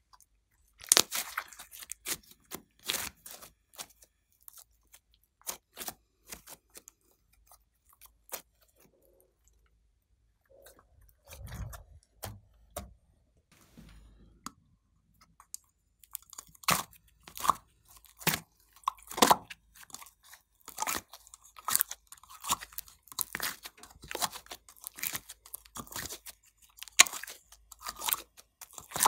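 Glossy slime being stretched and squeezed by hand, giving sticky clicks and crackling pops. They come sparsely at first, go quiet for a few seconds near the middle, then turn dense and rapid in the second half as the slime is worked and mixed.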